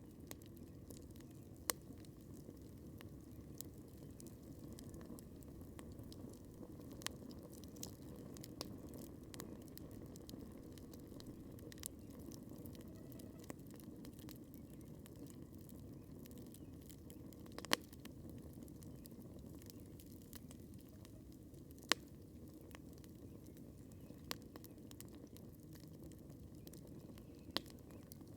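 Wood campfire crackling: a low, steady rush from the burning fire, with scattered sharp pops and snaps. A few pops stand out louder, once near the start and a few times in the second half.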